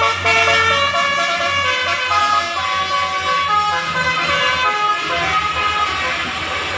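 Telolet basuri horn on a vehicle playing a tune of held notes that step up and down in pitch, over the low hum of the running engine.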